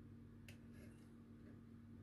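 Near silence: room tone with a steady faint hum, and one faint click about half a second in.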